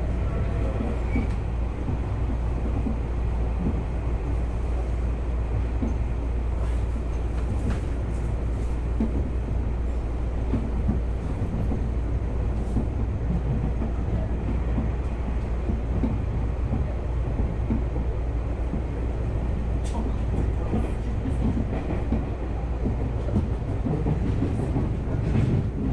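Tokyu Oimachi Line express train running at speed, heard from inside the passenger car: a steady low rumble of wheels on rail, with a few sharp clicks here and there.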